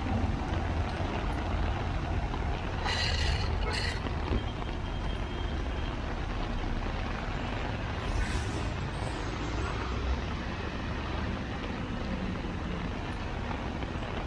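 Heavy road traffic in a rain downpour: a steady low rumble of engines under the wash of rain and wet tyres. Two short, sharp hisses come about three and four seconds in.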